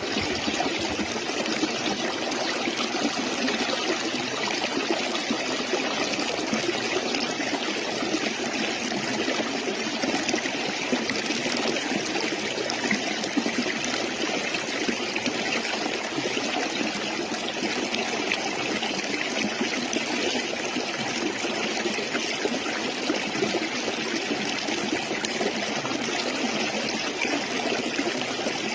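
Stream water running and trickling steadily, an even rushing with no breaks.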